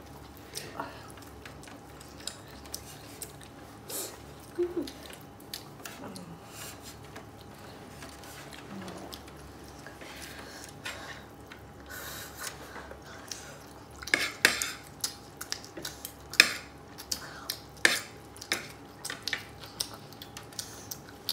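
Spoon clinking and scraping against a dinner plate during a meal, in scattered short clicks that come thicker and louder in the second half.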